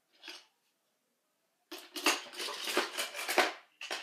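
Toy trains clattering as they are picked up and handled, a dense run of rattles and knocks lasting about two seconds, after a short faint click near the start.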